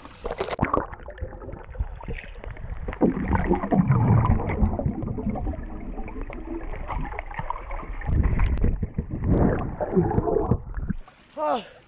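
Muffled underwater sound in a swimming pool, heard with the microphone submerged: bubbling and rushing water as swimmers move and breathe out, with louder surges twice. Near the end the microphone breaks the surface and the sound turns clear and open again.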